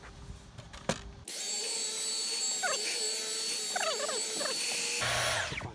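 Dyson V11 Torque Drive cordless stick vacuum switching on about a second in and running with a steady high whine over rushing air, then cutting off abruptly near the end. A few short falling squeaks are heard midway.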